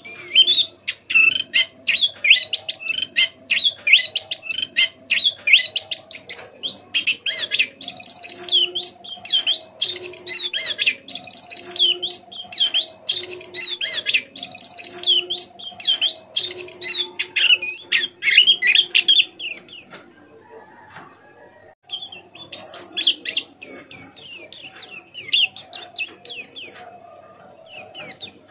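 A pleci (white-eye) twittering in a fast run of high chirps: the soft, busy warble of a bird still learning its song. It breaks off for about two seconds about two-thirds of the way through, then starts again.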